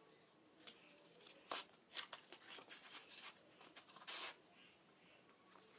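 Faint rustles and light taps of paper loudspeaker cones being handled and set down on a table, with a slightly longer rustle about four seconds in.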